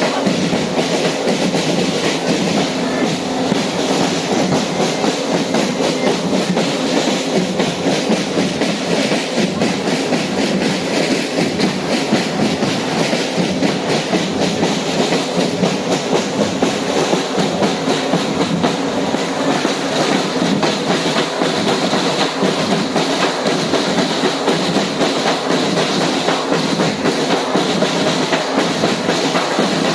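Moving train running steadily, with continuous rumble and clatter of wheels on the rails.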